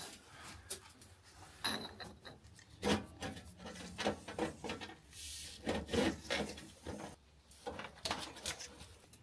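Scattered knocks, taps and clicks of work on the boiler's piping and parts, with a short scraping rub about five seconds in.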